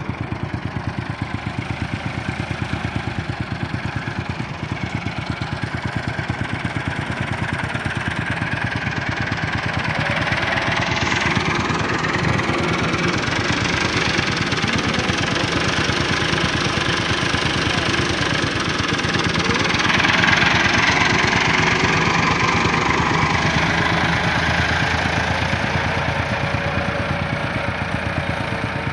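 Massey Ferguson 385 tractor's diesel engine running steadily under load while pulling a planter, with a fast, even engine beat. It grows louder through the middle as the tractor passes close by, then eases off.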